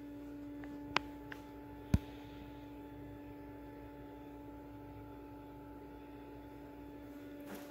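A steady hum, one low tone with fainter higher overtones above it, with two sharp clicks, one about a second in and a louder one about two seconds in.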